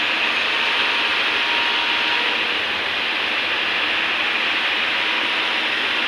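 Hydraulic excavator running steadily, a continuous even noise with a faint steady hum and no distinct knocks or changes.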